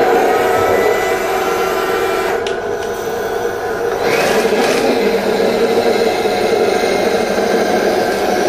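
Heng Long Challenger 2 RC tank in action: its version 6 sound unit plays a steady simulated tank-engine sound through the model's speaker. Mixed in is the whine of the electric turret and drive motors and the steel gearbox, as the turret traverses and the tank drives. The motor noise swells about four seconds in.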